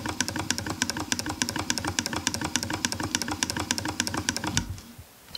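Willcox & Gibbs chain-stitch sewing machine turned by a British-style belt-drive hand crank: a rapid, even ticking of the stitching mechanism that stops about four and a half seconds in.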